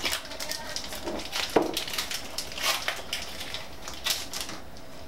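Foil Pokémon booster pack wrappers crinkling and crackling as they are handled and picked up: a run of short, sharp crinkles, with one louder click about one and a half seconds in.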